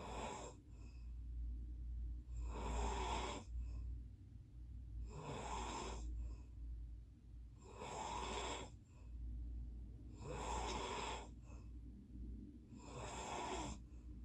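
Snoring in a steady rhythm, one rough, noisy snore about every two and a half seconds, with faint breaths between, over a low steady hum.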